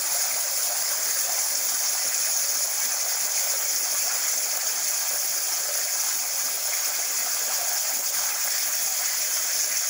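Hypertherm plasma torch on a CNC table cutting steel plate over a water bed: a steady, high hiss of the arc and cutting air.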